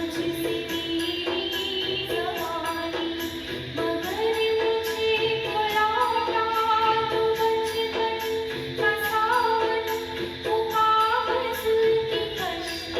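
Music: a song with a long-held, gliding melody over a steady, light percussion beat.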